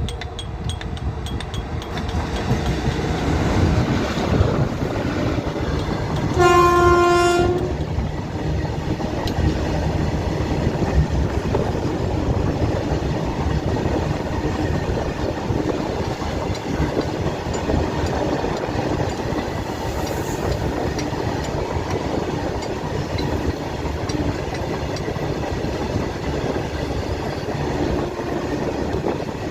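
A train running on the track with a steady rumble, and one horn blast about a second long around six and a half seconds in.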